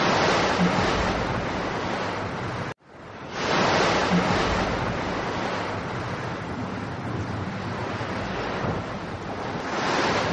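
Rushing storm-wind sound effect, a dense steady noise that swells and eases. It cuts out suddenly just under three seconds in, then builds back up.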